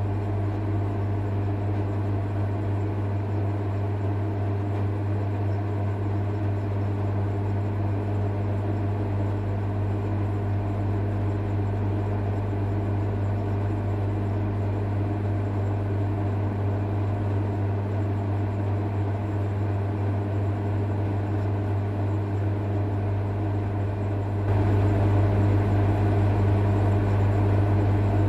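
Steady low electrical hum with faint overtones, stepping up in loudness about 24 seconds in.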